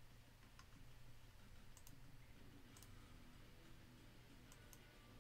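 Faint computer mouse clicks, about half a dozen single clicks with a couple in quick pairs, over a low steady room hum.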